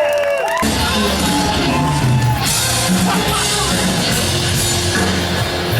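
Live rock band music: sliding synthesizer-like tones, then the full band with drums and bass coming in abruptly about half a second in.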